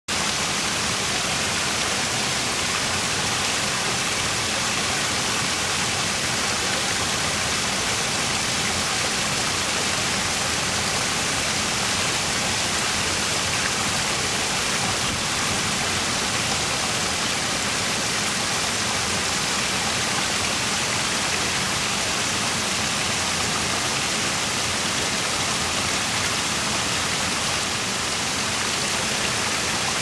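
Small decorative waterfall: several thin streams of water falling from a stone ledge and splashing into a pond, a steady, even rush of falling water.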